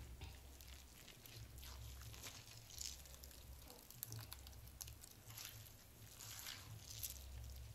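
Grated bottle gourd (lauki) being squeezed by hand to press out its water: faint, irregular wet squishing and crackling.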